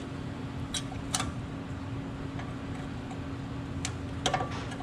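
Light metallic clicks and ticks as a brake pad is seated into the caliper bracket against its anti-rattle clip: a couple about a second in and a small cluster near the end. A steady low hum sits underneath.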